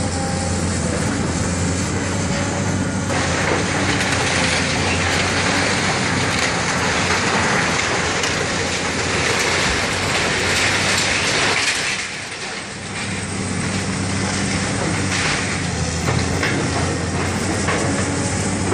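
Cat excavator's diesel engine running steadily while its demolition grapple tears into the building, with crunching and scraping of debris and metal roofing. The crunching is heaviest from about three seconds in until about twelve seconds in, then dips briefly before the work carries on.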